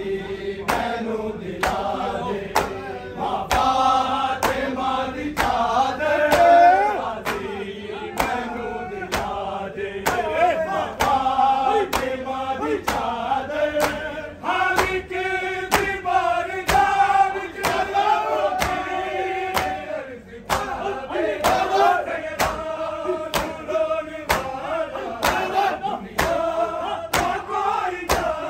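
A group of men reciting a Punjabi noha (Muharram lamentation) together, sung in unison over a steady rhythm of sharp slaps from matam (chest-beating).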